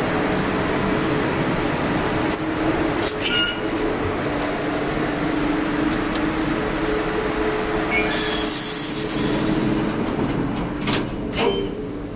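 Steady machinery hum inside a 1990 Stahl relay-controlled traction elevator car, with a few sharp clicks and a short hiss about eight seconds in.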